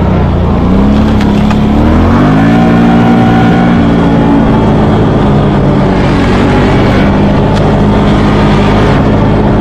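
ATV engine revving up as the quad accelerates, its note rising over the first two seconds, then running steadily at speed.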